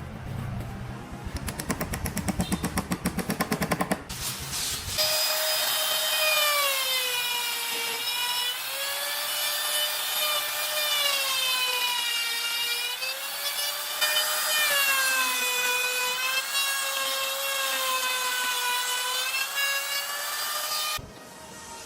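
Electric power tool working wood. It opens with a few seconds of rapid rhythmic rasping, then a motor whine whose pitch sags and recovers again and again as the tool is loaded. It stops abruptly near the end.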